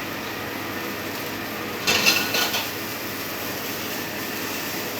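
A cooking utensil clattering and scraping against a frying pan for under a second, about two seconds in, over a steady hiss.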